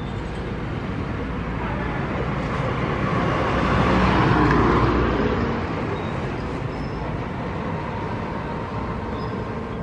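Road traffic noise, with one vehicle passing close: it grows louder to a peak about four to five seconds in, then fades back to the steady traffic hum.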